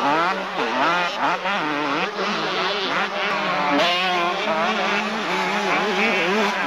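Two-stroke motocross bike engines racing, their pitch rising and falling quickly and over and over as the throttle is worked.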